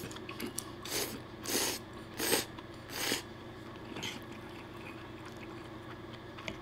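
A man slurping spaghetti in about five short, hissing sucks over the first three seconds, then chewing quietly with his mouth closed.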